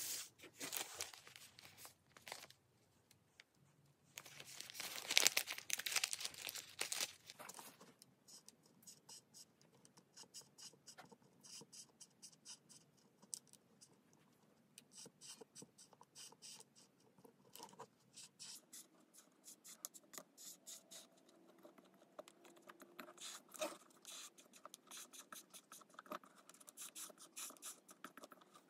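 Plastic packet of plastic welding rods crinkling and rustling as it is handled, in two spells over the first several seconds. After that, many quick light scratches and taps of a hot soldering-iron tip working along a crack in a plastic bucket.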